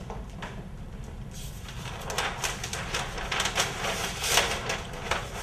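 Dense rustling with light clicks, starting about a second in and growing louder toward the end, over a low steady hum.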